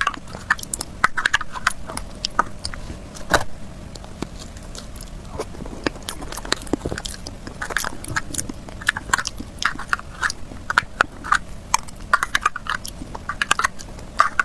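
Close-miked mouth sounds of someone eating cake: biting and chewing, with many quick, irregular clicks that thin out around the middle and come thick again in the second half.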